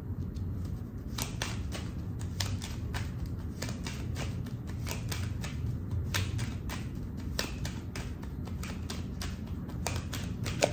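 A deck of oracle cards being shuffled by hand, overhand: a run of quick, irregular card clicks and flicks.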